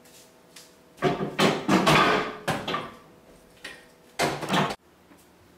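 Sandwiches being loaded into a microwave: scraping and knocking of bread and a wooden board against the microwave, then a louder clunk of the microwave door being shut near the end.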